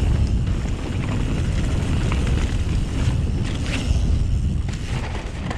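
Wind buffeting a chest-mounted action camera's microphone while a YT Jeffsy mountain bike rides a dirt trail, with a steady low tyre rumble and scattered clicks and rattles from the bike, a cluster about three and a half seconds in.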